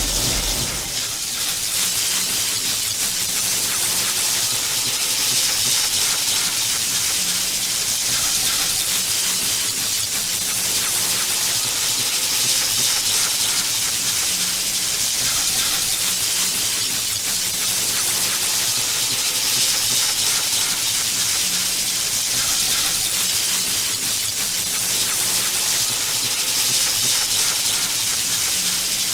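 Electric energy sound effect: a continuous hiss of electrical discharge with a low electric hum that comes and goes underneath.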